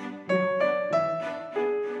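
Background music: a piano playing single notes one after another, each struck sharply and fading, a few a second.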